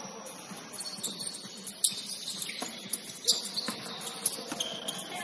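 Basketball court sounds: short high squeaks of sneakers on the gym floor, mixed with several sharp knocks.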